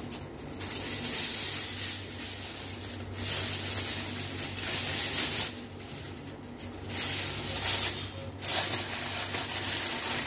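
Aluminium foil crinkling in stretches of a second or two as it is pressed and crimped around the rim of a cooking pot to seal it for dum cooking, over a steady low hum.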